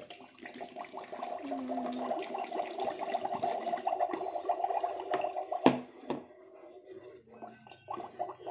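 Water glugging and gurgling as it is poured from a plastic potion bottle into a toy cauldron, with a sharp knock about five and a half seconds in.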